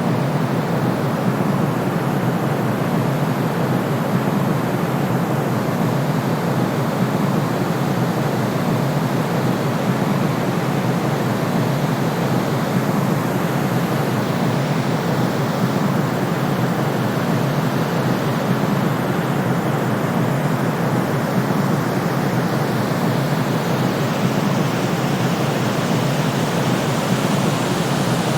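Steady synthetic sleep noise: a continuous, unchanging rushing hiss. It is weighted toward the low end, deeper than true white noise and closer to pink noise.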